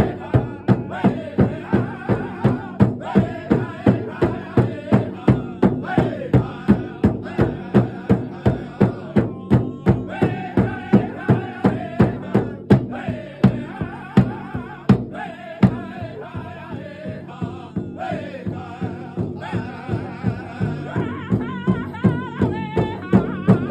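Powwow drum group: several men striking one large shared drum in unison with padded beaters, a steady beat of about three strikes a second, while singing together in high, sliding voices. The drumbeats soften for a few seconds past the middle, then build back up near the end.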